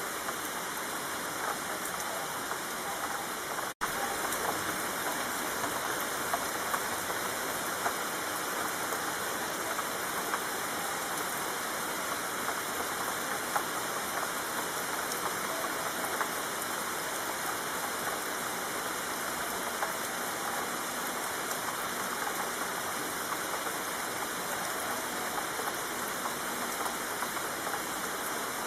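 Steady rainfall: a continuous hiss of drops with scattered louder individual drop ticks. It cuts out for an instant about four seconds in, then resumes unchanged.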